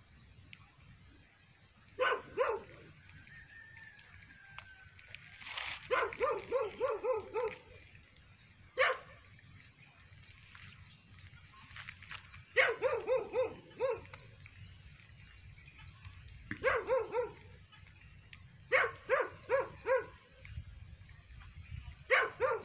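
Dog barking in quick runs of two to six barks, a run every few seconds, over a faint low rumble.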